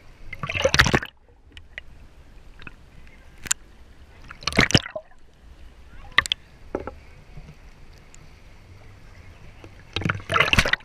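Seawater sloshing and splashing against a camera held at the water's surface, with three loud washes of water, about a second in, near the middle and near the end, and a few sharp knocks between them.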